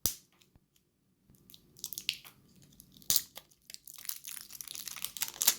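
Two AAA batteries being loaded into a Zoom H1n handheld recorder: a sharp plastic click, then scratchy handling noise and small clicks from the battery compartment. Sharp clicks come about three seconds in and again near the end.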